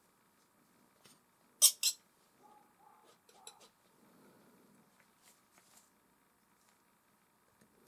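Palette knife scraping through oil paint: two sharp, loud scrapes close together about two seconds in, then a scatter of softer short scrapes and clicks.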